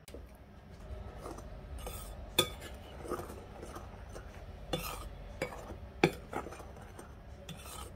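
Metal spoon stirring dry flour mix in a glass bowl: a steady soft scraping through the powder, with several sharp clinks of the spoon against the glass.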